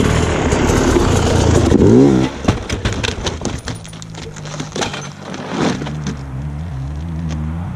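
A motor vehicle engine revs with a loud rush of noise, its pitch sweeping up and down, then settles about three seconds in to a steady idle, with scattered rattling clicks.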